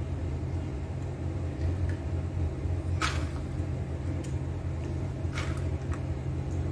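A steady low hum, with a few soft clicks: one about three seconds in, others around two, five and a half and six seconds in.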